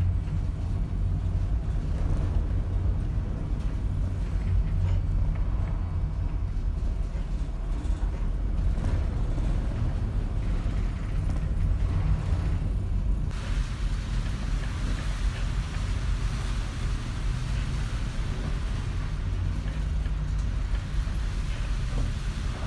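Stormy sea: a steady deep rumble of wind and waves, with a brighter hiss joining about halfway through.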